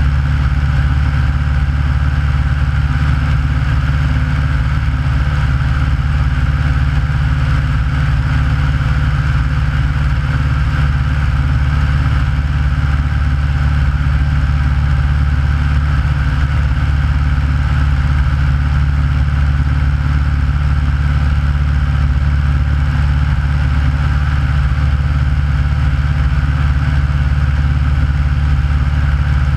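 An Aeronca light plane's engine and propeller running in steady flight, an unbroken drone with no change in pitch.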